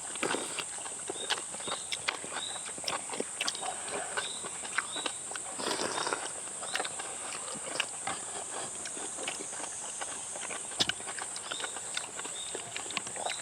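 Eating sounds: chewing of boiled beef head meat with frequent light clicks of chopsticks and spoons against bowls, over a steady high-pitched hiss.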